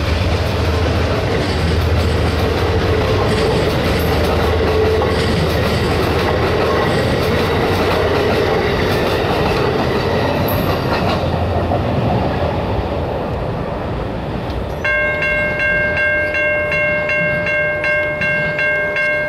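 Amtrak passenger cars rolling past at speed, a steady rumble of wheels on rail that fades away once the last car clears, about ten seconds in. About fifteen seconds in, the grade-crossing bell rings on, about two strikes a second, while the crossing gates rise after the train has passed.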